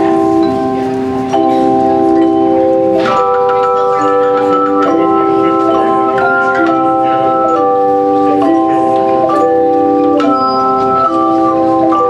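Handchime choir playing a slow piece in chords: sustained, overlapping ringing tones, with a new chord struck about every second.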